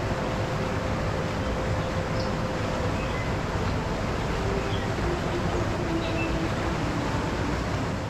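Rushing water of a rocky mountain stream, a steady, even rush of rapids over stones. A few faint high chirps sound above it now and then.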